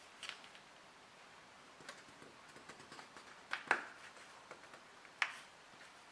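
Short sharp plastic clicks and faint ticks as the Nokia Lumia 920's polycarbonate back shell is pushed and slid by fingers, its snap latches releasing; the loudest click comes about three and a half seconds in, another about five seconds in.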